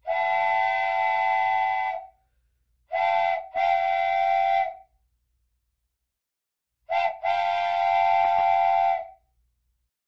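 Steam-train whistle sound effect blowing three times: first one long blast of about two seconds, then twice a quick toot running straight into a longer blast. Several steady pitches sound together as a chord.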